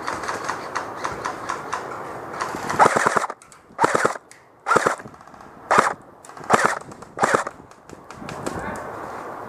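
Airsoft electric rifle firing: a rattle of rapid clicks, then six short bursts of full-auto fire about a second apart.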